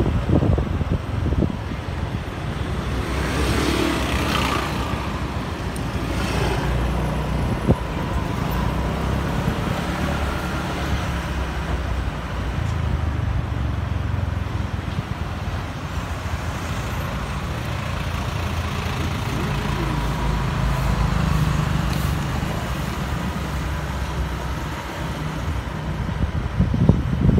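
Motor scooter riding along a city street: a steady low engine and road rumble, with the sound of surrounding traffic.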